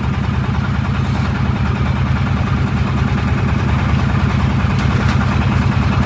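An engine running steadily at idle, an even low hum, with a few faint light knocks about five seconds in.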